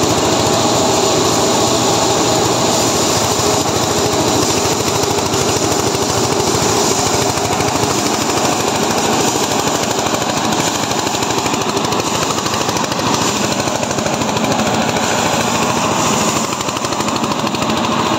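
Diesel-powered paddy threshing machine running steadily with a rapid, even rattle as its wire-toothed drum threshes hand-fed rice stalks.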